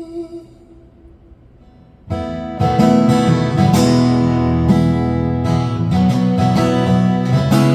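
A held sung note fades out, and after a short pause an acoustic guitar starts strumming chords about two seconds in, carrying on steadily as an instrumental passage of the song.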